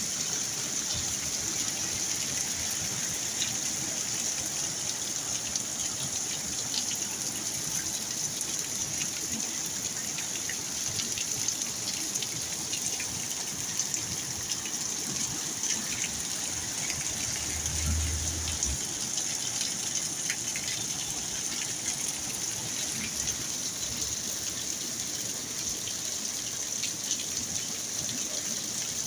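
Storm rain falling steadily: a dense hiss of rain and running water with scattered drop ticks. A brief low rumble comes partway through.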